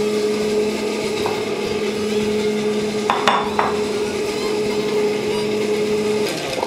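Steady hum of a kitchen appliance motor at one constant pitch, with two light knocks a little past halfway. The hum stops shortly before the end.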